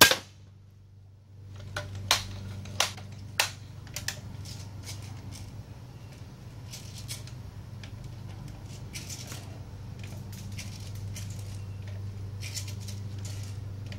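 A BB gun shot strikes the glass screen of a switched-on CRT television, then a steady low hum runs under scattered sharp clicks and crackles, the loudest of them coming about two to three and a half seconds in.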